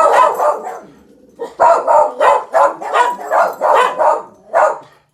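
Pet dogs barking repeatedly at children nearby, about three barks a second, with a brief pause about a second in.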